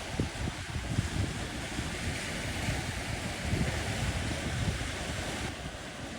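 Wind buffeting the microphone over a steady rushing wash of sea waves. The hiss thins a little near the end.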